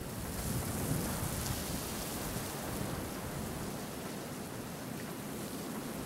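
Wind of a winter snowstorm: a steady hiss with a low rumble that swells about half a second in and eases off.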